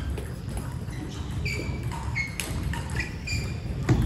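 Table tennis hall ambience: a steady low hum with scattered ball clicks and a few short high squeaks, then a louder knock near the end.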